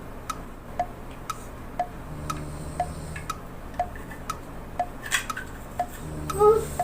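A clock ticking evenly, about twice a second, over a faint low hum. A sharp click comes about five seconds in, and a louder clink with a short ringing tone comes near the end, as parts are handled.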